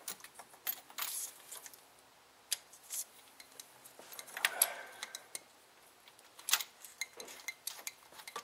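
Metal hand tools clinking and tapping: a spark plug socket on a long extension being handled and worked down into the plug well, with scattered light clicks and one short ringing clink about four and a half seconds in.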